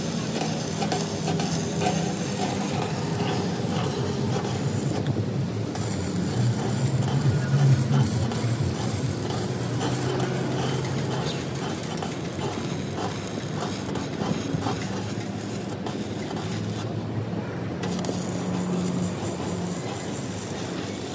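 Electric arc welding crackling and sizzling steadily over a low steady hum, as a crack in an excavator swing-circle grease box is welded up.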